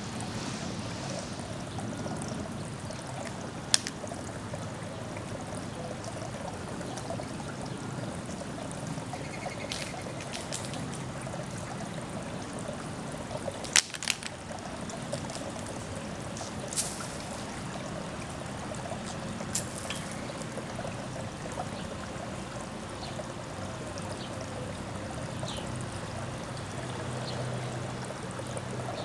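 Steady trickling water, with a few sharp clicks scattered through it and a couple of faint bird chirps near the end.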